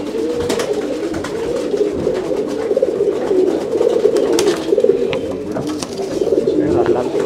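Many domestic pigeons cooing at once, a dense, unbroken chorus of overlapping low coos, with a few scattered sharp clicks.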